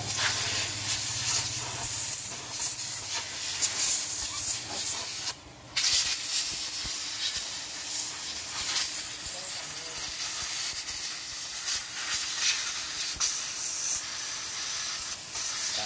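A pressurised jet hissing steadily during brake cleaning, stopping for about half a second some five seconds in and then starting again.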